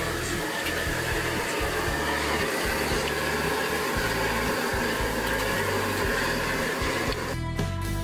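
A high-pressure gas wok burner running with a steady rushing noise under a stir-fry of greens. Background music comes in near the end.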